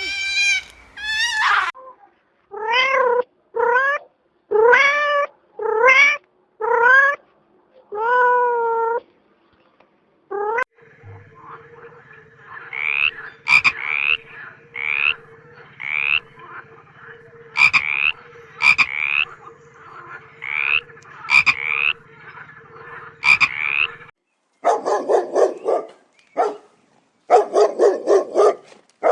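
Animal calls in three runs. First come about six drawn-out pitched calls that bend downward. Then about a dozen short rising calls sound over a steady hum. Near the end come bursts of fast pulsed calls.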